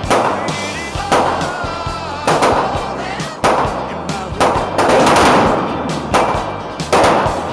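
Gunshots, about one a second and unevenly spaced, over background music with a steady bass line.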